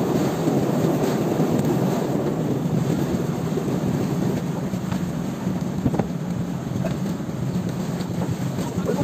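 Steady rumble of wind and choppy sea around an outrigger fishing boat, with a few light knocks about six seconds in.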